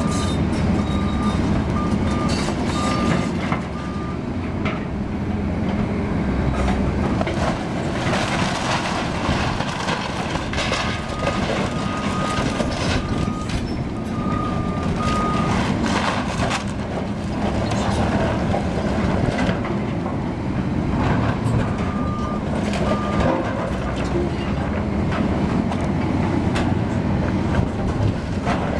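Hydraulic excavator demolishing a wooden-framed building: its diesel engine runs steadily under irregular crashing and crunching of timber and debris as the structure is pulled down. A backup alarm beeps in three short spells, near the start, around the middle and about three-quarters of the way through.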